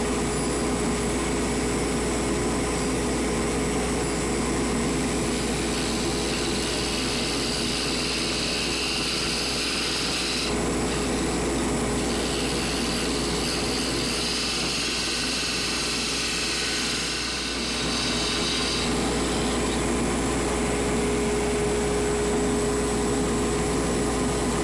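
Wood lathe running steadily with a constant motor hum while a chisel cuts the spinning wooden screwdriver handle; the hiss of the cut comes in for two long passes, about five seconds in and again about twelve seconds in.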